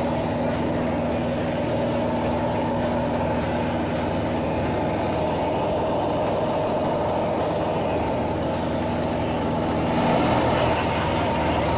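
Engine and propeller of a light single-engine plane running steadily in cruise, heard inside the cockpit as a constant drone, a little louder near the end.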